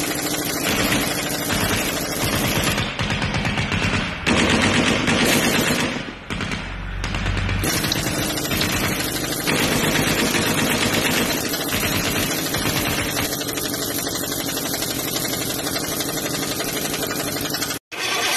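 Pneumatic impact wrench hammering on a front wheel hub's axle nut, a rapid rattling run of blows in long bursts.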